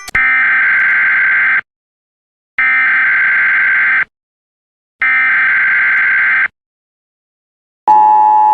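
Electronic buzzer tone sounding three times, each about a second and a half long with about a second of silence between. Near the end a different, lower steady tone begins.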